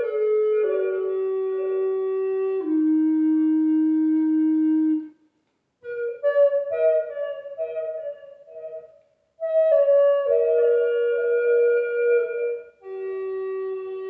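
Native American flute playing a slow melody. Long held notes step down in pitch, then break off for a breath about five seconds in. A quicker run of ornamented higher notes follows, with another brief breath, and then a long held note.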